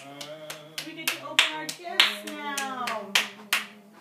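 Hands clapping, about a dozen uneven claps, with excited voices rising and falling over them; the claps die away near the end.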